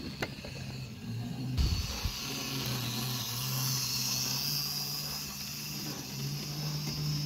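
Model train rolling along the layout track past the camera, with a steady electric hum and a hiss. A sharp click comes just after the start and a low thump about two seconds in.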